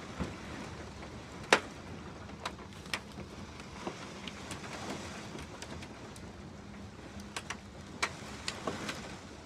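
Strong storm wind blowing steadily, with scattered sharp taps and knocks, the loudest about a second and a half in.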